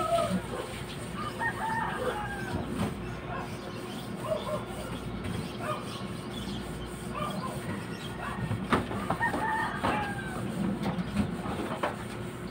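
Chickens clucking and calling in many short calls, with a rooster crowing among them. A single sharp knock about nine seconds in.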